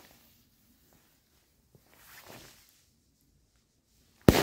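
A P1000 Thunder King firecracker going off: about four seconds of near quiet with a couple of faint small noises, then near the end a single sharp, loud bang that rings on as it fades.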